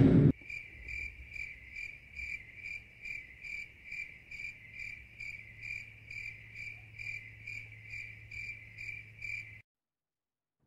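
Cricket chirping at an even pace, a little over two chirps a second, over a low steady hum: the stock 'crickets' sound effect that marks an awkward silence. It cuts off abruptly near the end.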